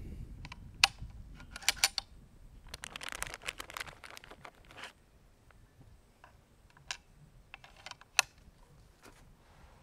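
Sharp metallic clicks of a Western Big Bores Bushbuck 45 big-bore PCP air rifle's action being worked to load a slug, with a stretch of rustling from a plastic bag of slugs in the middle. A few clicks come in the first two seconds and another cluster near the end, the last of them loud.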